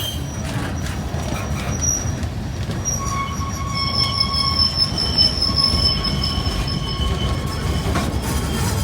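Freight train cars rolling over the rails with a steady low rumble, their wheels squealing in several steady high tones from about two seconds in until near the end.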